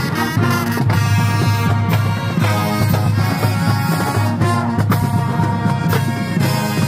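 College marching band playing live: loud massed brass, with sousaphones on the bass line, over a steady drum beat.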